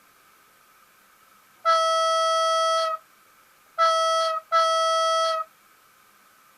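ST43 diesel locomotive horn sample played by a model locomotive's sound decoder. It gives one long blast, then two shorter blasts in quick succession, all on the same steady pitch.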